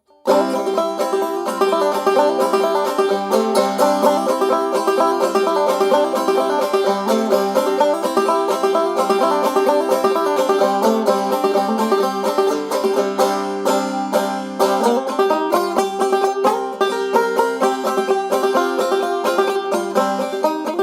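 Instrumental banjo music: a fast run of picked notes, with no singing.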